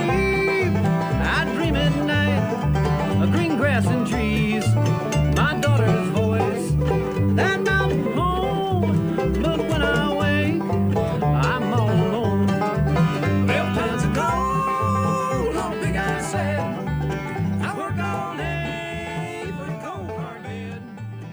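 Background country-style music with plucked strings and a steady beat, fading out near the end.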